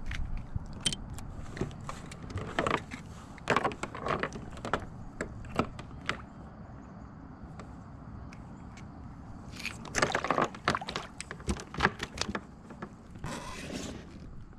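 Hands handling a crappie and unhooking it in a kayak: irregular clicks and rattles of hook, tackle and the kayak's fittings in two clusters, then a short rushing noise about a second before the end.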